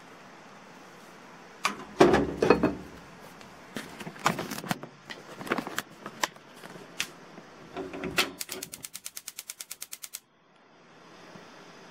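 Metal pot and lid knocking and clattering as the pot is handled and set down on the gas hob. Then the hob's igniter clicks rapidly, about ten clicks a second for nearly two seconds, and stops suddenly as the burner lights, leaving a faint steady hiss of gas flame.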